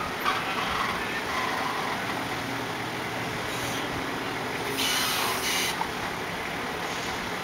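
Forklift engine running steadily while loading steel plates along a roller table into a container, with a brief hiss about five seconds in.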